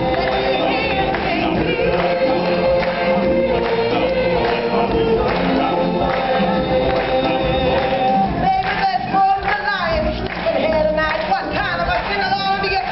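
Live stage-show music with a group of voices singing long held notes over the accompaniment. After about eight seconds the held chords break up into shorter vocal phrases.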